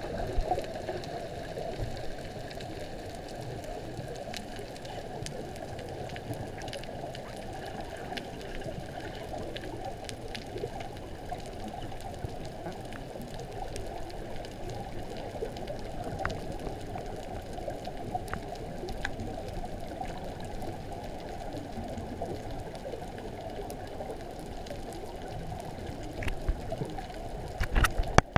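Muffled underwater ambience recorded beneath the sea: a steady low rush of water with scattered faint clicks. A few louder knocks come near the end.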